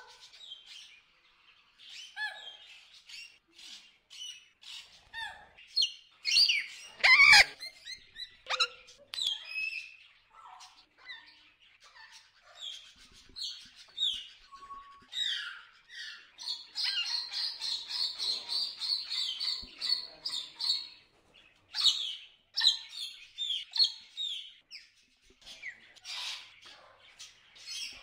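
Blue-and-yellow macaws calling: a stream of short chirps and squawks. One loud, harsh squawk comes about seven seconds in, and a quick unbroken run of calls follows in the second half.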